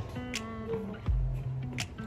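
Background music with guitar over held bass notes and a steady beat, with a deep kick about a second in.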